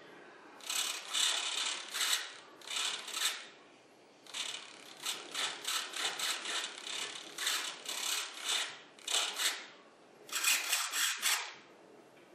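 A small mechanism making rapid runs of short ratcheting strokes, a few a second, in three bursts with short pauses between them.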